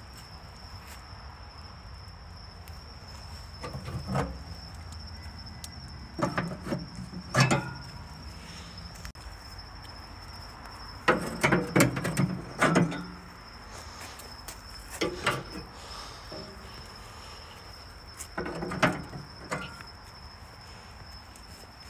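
Several bouts of metal clanking and knocking at a charcoal barrel grill as the coals are dumped and the grill is worked. Behind them runs the steady high chirring of crickets.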